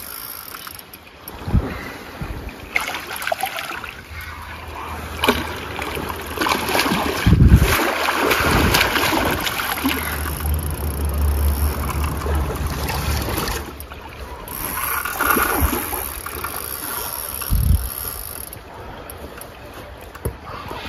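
An angler playing a wels catfish on a heavily bent spinning rod: reel and rod-handling noise, with wind buffeting the microphone in a low rumble that comes and goes and several sharp knocks.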